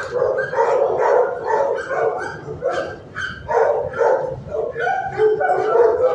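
Dogs in shelter kennels barking repeatedly, the barks overlapping with almost no pause.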